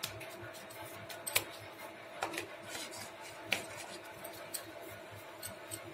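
Light clicks and taps from hands working dough balls over a steel bowl, with three sharper clicks spread through. A faint steady hum runs underneath.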